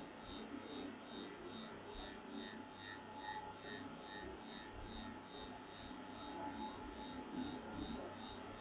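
Faint background noise of a quiet room: a low hum, with a soft high-pitched pulsing that repeats evenly about three times a second.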